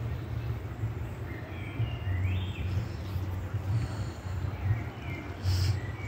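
Forest river flowing, heard as a steady rushing over a low, fluctuating rumble, with a few short bird chirps.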